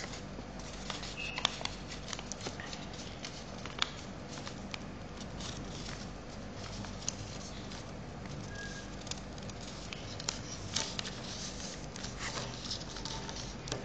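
A sheet of paper being folded and creased by hand: scattered small crinkles and crackles of the paper over a faint steady background noise.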